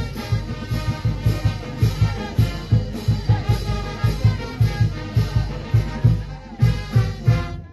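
Brass band playing a dance tune with trumpets and trombones over a steady bass drum beat, about three beats a second.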